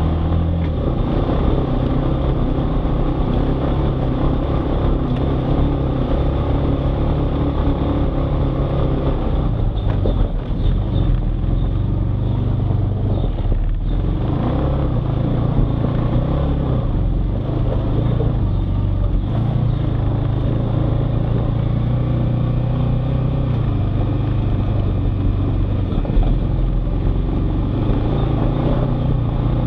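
Off-road vehicle engine running steadily while riding a trail, its note dropping and picking up again a few times as the throttle changes.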